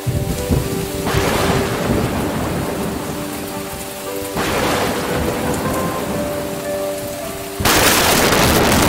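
Heavy rain with rolling thunder. A low rumble begins at once and swells about a second in, another roll comes at about four seconds, and the loudest, sudden thunderclap breaks near the end.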